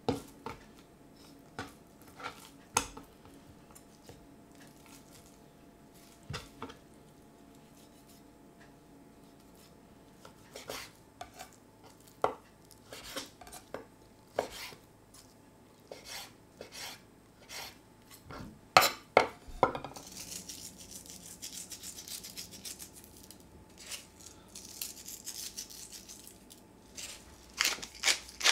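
Kitchen knife cutting pork fillet on a wooden chopping board: scattered sharp knocks of the blade meeting the board, some in quick groups. Later a faint steady hiss, and near the end a quick run of regular clicks.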